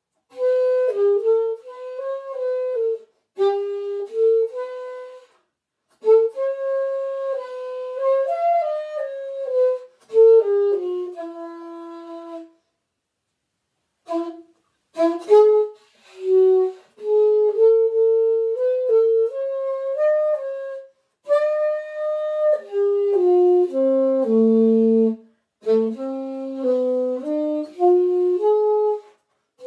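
Solo saxophone playing an unaccompanied melody in short phrases, with brief breaks between them and a longer pause about twelve seconds in; it dips to its lowest notes a little after twenty seconds in.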